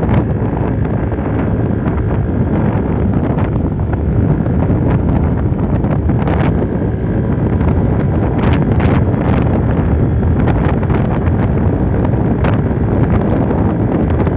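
Wind buffeting the microphone over a Yamaha Aerox V2 scooter running under steady throttle as it is ridden uphill, its CVT freshly cleaned. A few brief knocks come through in the second half.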